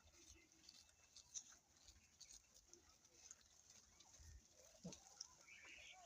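Faint goat-pen ambience: scattered light clicks and taps, with a faint short animal call about five seconds in.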